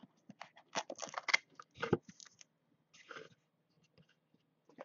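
Packing tape being worked off a cardboard trading-card box: scattered scratches, clicks and crinkles, busiest in the first two and a half seconds.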